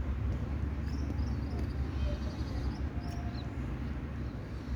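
Outdoor ambience: a steady low rumble, with small birds chirping a few times in the middle.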